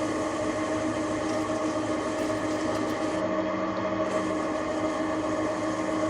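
TV-16 bench lathe running steadily, a constant mechanical hum with several steady tones.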